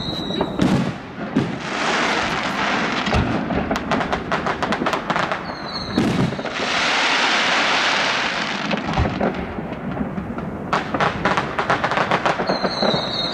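Aerial firework shells bursting: several deep booms, with dense sharp crackling throughout and a thick crackling hiss for about two seconds in the middle.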